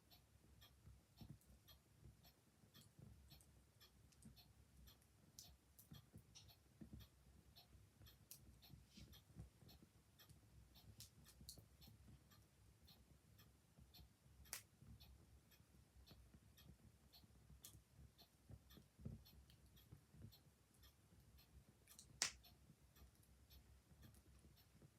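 Faint crackling of a small wood fire, with many light irregular pops and one sharper snap near the end, alongside a ticking clock in a small room.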